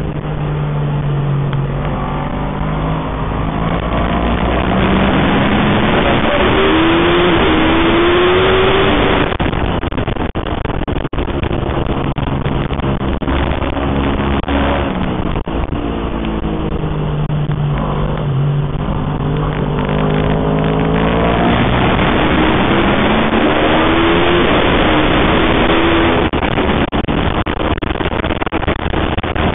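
Aprilia RSV4 superbike's V4 engine at race pace, heard from on board: the revs climb under acceleration, drop sharply as it slows for corners, then climb again. Wind rushes over the microphone throughout.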